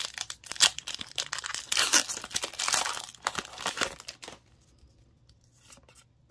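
A foil Pokémon TCG booster pack wrapper being torn open and crinkled in the hands. It gives a dense crackling for about four seconds, then stops, leaving only a few faint ticks.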